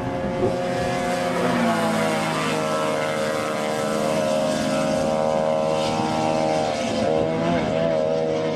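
An engine running steadily at high revs, its pitch wavering briefly near the end.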